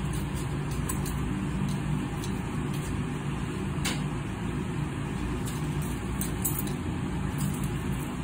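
Ford flathead V8 with triple carburettors idling steadily, running for the first time in over a decade.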